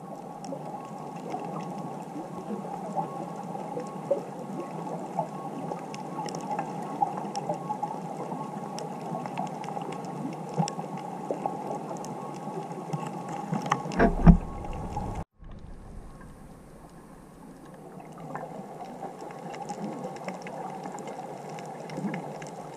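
Underwater ambience heard through a camera's waterproof housing: a steady rushing hiss with scattered small clicks. About fourteen seconds in there is a loud low knock and rumble, and then the sound cuts out for a moment.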